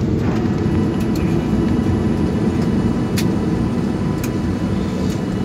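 Cabin noise of a SpiceJet Boeing 737 rolling down the runway just after landing: a steady low rumble of engines and wheels on the tarmac, with two faint clicks about three and four seconds in.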